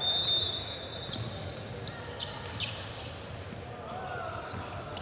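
Basketball being played on a gym court: the ball bouncing, sharp sneaker squeaks and players calling out, with a short high whistle tone right at the start.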